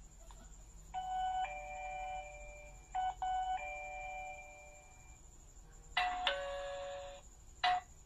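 GazingSure wireless video doorbell chiming: a two-note falling ding-dong that rings and fades, heard twice about two seconds apart. About six seconds in comes a brighter, shorter electronic chime, then a short beep near the end.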